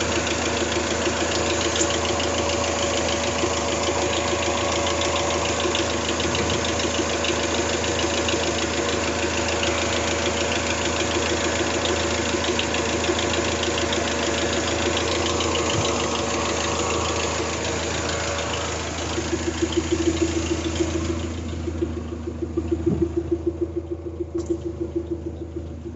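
Toyota 3S-GTE turbocharged four-cylinder engine running with a minor ticking rattle. About twenty seconds in, the fine high ticking and hiss die away and a slower, pulsing engine beat is left.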